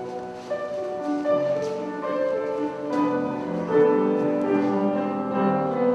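Calm classical-style instrumental music, with slow, held notes overlapping one another.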